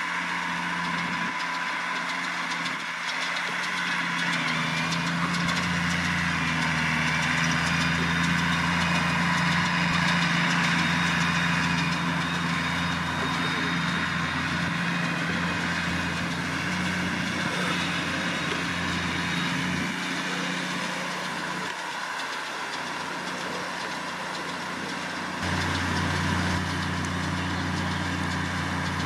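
New Holland T6070 tractor engine running steadily while pulling a Vicon RV 1601 round baler, with the baler's machinery clattering and rushing on top. The engine's low note grows louder about 25 seconds in.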